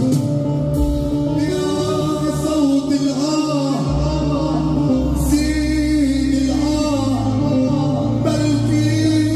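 A man singing an Arabic mawwal into a microphone, his voice bending through long, ornamented held lines over a steady instrumental backing.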